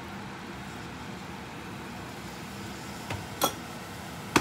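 Hot water from a stainless-steel kettle pouring into a scorched saucepan of burnt rice, with a steady hiss. Near the end come a few sharp clinks, the last the loudest, as the kettle is set back down.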